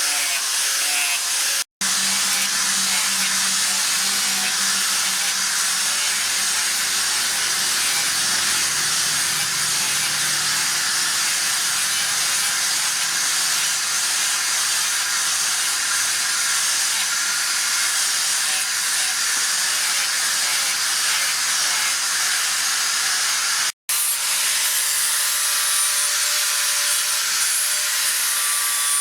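A power tool abrading the work in a steady, continuous hiss, cut off abruptly twice.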